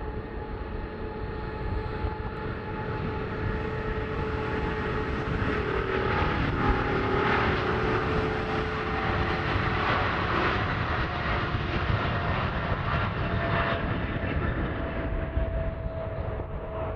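Boeing 777's twin GE90 turbofan engines at takeoff thrust during the takeoff roll: a steady jet roar with whining engine tones. It grows louder about six seconds in and stays loud as the jet rotates.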